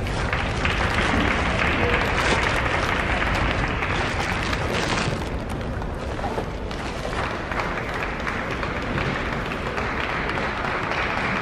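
Arena crowd applauding between points of a table tennis match. The clapping is heaviest over the first five seconds, eases for a moment around the middle, then picks up again.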